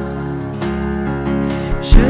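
Instrumental backing of a hymn: steady sustained chords between sung lines. A single loud, low thump comes just before the end.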